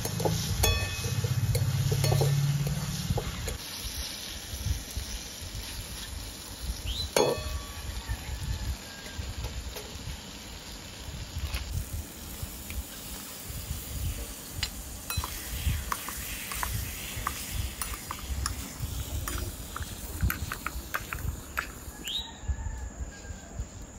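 Metal spatula stirring and scraping food in a steel wok over a fire, with scattered clinks against the pan and light frying. A low rumble sits under the first few seconds.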